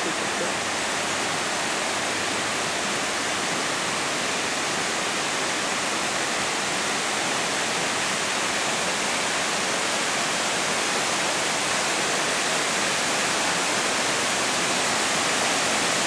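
Waterfall rushing: a steady, even roar of falling water that grows slightly louder as it is approached.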